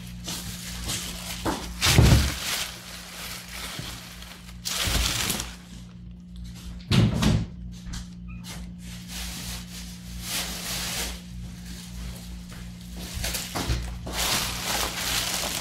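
Background music, with plastic grocery bags rustling and two heavy thuds, about two and seven seconds in, as full bags are set down on a hard table.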